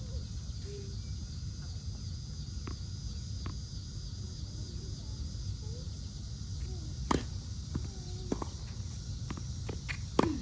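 Tennis ball struck by rackets and bouncing on a hard court: a few sharp pops, the loudest about seven and ten seconds in. A steady high insect drone and a low rumble run underneath.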